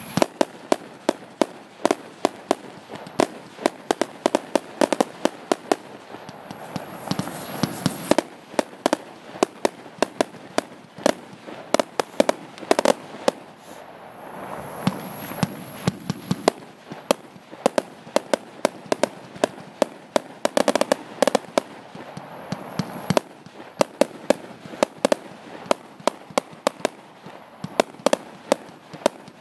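Category F2 consumer fireworks battery firing a rapid, unbroken string of shots and bursts, several sharp bangs a second.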